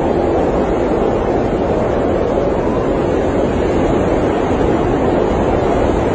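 Blizzard wind blowing steadily: an even, unbroken rushing noise with no gusts or breaks.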